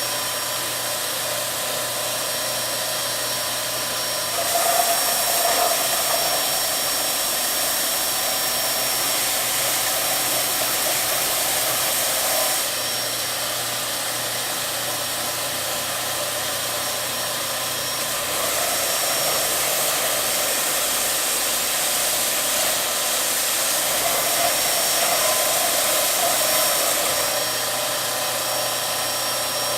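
Electric sander running steadily against wood, its sound shifting in loudness and tone every several seconds as the load changes.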